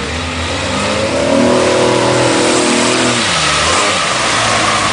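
Jeep Cherokee's engine revving hard as it pushes through deep mud and water, with the splash and wash of the mud around it. The revs climb from about a second in and drop off a little after three seconds.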